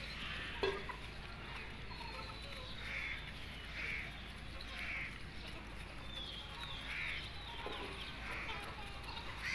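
Young chickens calling softly with short, high, falling peeps while pecking feed from a dish, with a couple of sharp taps as beaks strike the dish.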